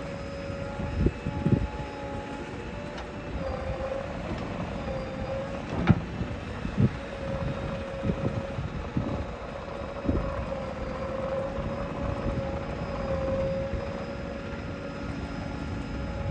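Diesel engine of a JCB 3DX backhoe loader running steadily under work, with a whine that wavers slightly in pitch. Several low thuds come at irregular moments, typical of the bucket and loaded mud knocking.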